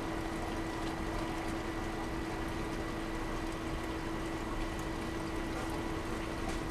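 Water running steadily down a 10-inch cleanup sluice over its mats, fed by an 1100-gallon-per-hour pump, with a steady hum underneath.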